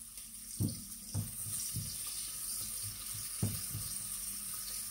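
Onion frying in oil in a pot, a steady sizzle, with a few soft low knocks as it is stirred, the strongest about half a second in and near three and a half seconds.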